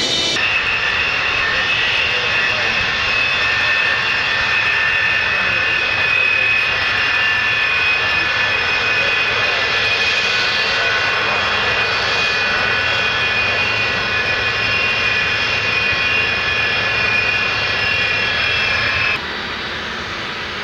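Jet engines of a taxiing Alaska Airlines Boeing 737-200, its Pratt & Whitney JT8D turbofans giving a loud, steady whine over a rushing roar. Near the end the sound cuts abruptly to quieter jet-engine noise as a United Parcel Service Boeing 747 rolls along the runway.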